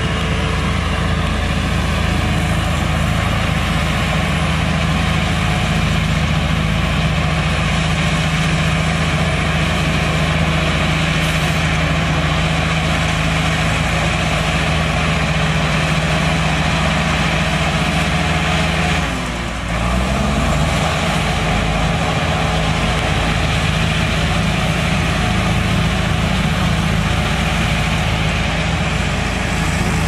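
Diesel engines of a Caterpillar 320D crawler excavator and a crawler bulldozer running steadily under work, a continuous low engine drone. About two-thirds through the sound dips briefly and the engine note falls and rises again.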